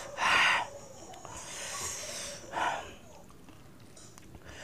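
A man breathing hard through his mouth against the burn of hot chilli while eating. Two short, loud hissing breaths, one just after the start and one about two and a half seconds in, with fainter breathing between.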